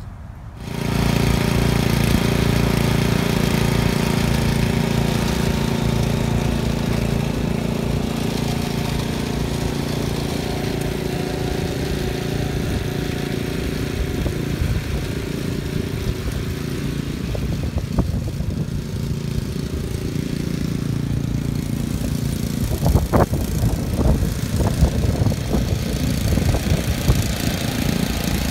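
Bunton 36-inch walk-behind mower's engine running steadily under load while cutting grass. From about two-thirds of the way through, irregular sharp knocks come through and the sound grows louder as the mower nears.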